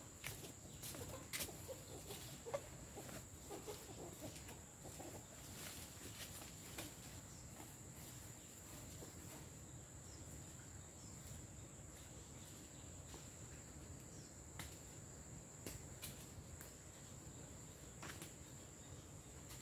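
Quiet orchard ambience: a steady high-pitched insect drone throughout, with faint short bird calls in the first few seconds and scattered light clicks and rustles from branches being handled.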